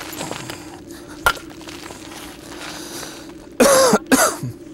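A dogwood billet strikes the edge of a stone core once, a single sharp knock about a second in: hard-hammer-free percussion flaking, knocking a flake off. Near the end a person coughs twice, the loudest sound.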